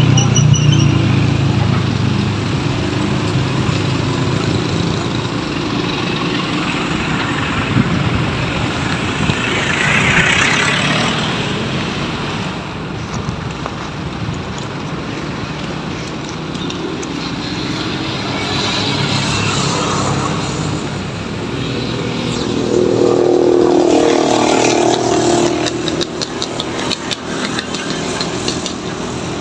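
Road traffic passing on a concrete road, vehicle engines and tyres going by. It is loudest near the start, swells again about ten seconds in, and has a strong engine drone about 23 to 25 seconds in.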